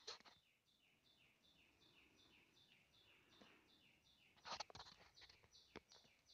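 Near silence, with a bird faintly chirping in quick, evenly spaced high notes, each falling in pitch, about four a second. A few soft clicks come about four and a half seconds in.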